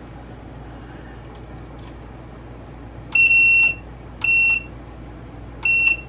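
Digital multimeter continuity beeper sounding three times, a steady high beep each lasting under a second, the first the longest. Each beep means the microwave door interlock switch is pressed in and closing the circuit.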